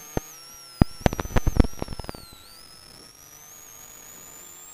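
Rally car intercom crackle and interference: a cluster of sharp crackling clicks from about one to two seconds in, over a steady electrical hum and faint high whistles that drift in pitch.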